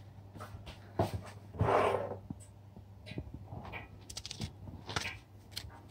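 Small kitchen handling sounds: a glass bowl and utensils clicking and knocking on a steel counter, a few scattered taps and a brief rush of noise about two seconds in, over a low steady hum.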